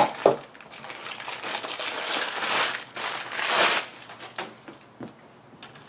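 Packaging crinkling and rustling as the keyboard's cable is handled, with two sharp clicks right at the start and two longer swells of rustling in the middle.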